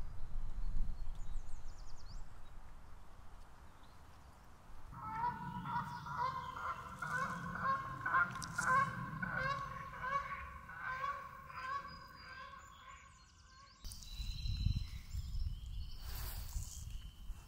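Geese honking over and over, several calls a second. The calls start about five seconds in, run for about nine seconds and cut off suddenly. A low wind-like rumble follows.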